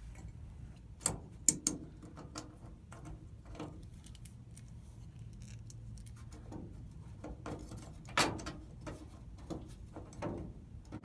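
Small metal screws clicking and tapping as they are handled and set by hand into the mounting plate of a fuel sending unit: scattered light clicks, the loudest about a second and a half in and again about eight seconds in.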